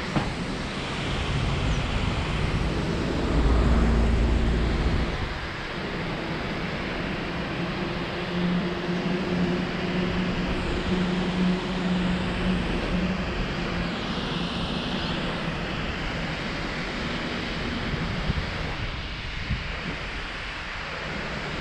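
Wind rushing over a head-mounted camera's microphone during a bicycle ride, a continuous noisy rush. A louder low rumble comes about three seconds in, and a steady low hum runs through the middle.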